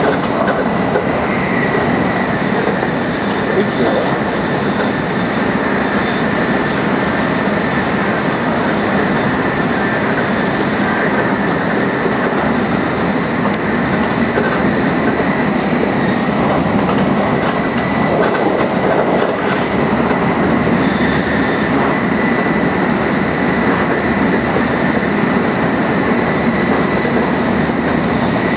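Tokaido Shinkansen Nozomi bullet train running at high speed: a steady, loud rushing rumble with a thin, steady high whine over it.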